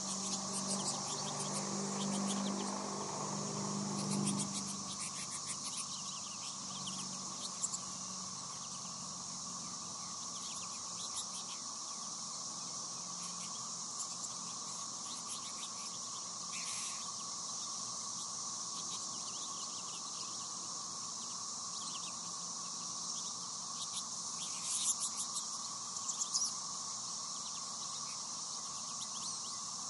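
Steady chorus of crickets and other insects, with scattered short chirps and twittering from American goldfinches at the feeders, loudest about 25 seconds in. A low hum runs under the first four seconds.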